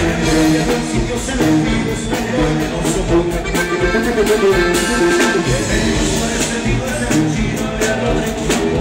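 Live corrido band music at full volume: sousaphone, drum kit and guitars playing over a steady drum beat.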